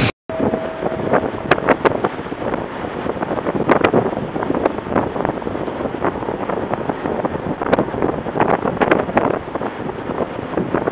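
Storm wind buffeting the microphone in irregular gusts, over the rushing noise of heavy seas breaking around an offshore platform.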